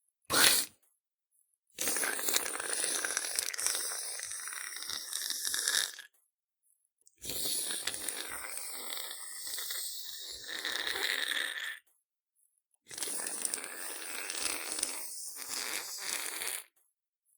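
Slime sound effects: a brief wet splat just after the start, then three separate stretches of wet squishing, each about four to five seconds long, with dead silence between them.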